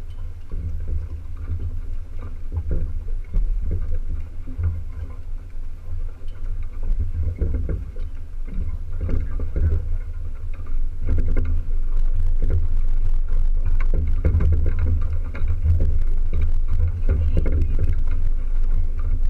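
Wind rumbling on the microphone of a small sailboat under way, with water sloshing and splashing against the hull. The rumble gets louder about eleven seconds in.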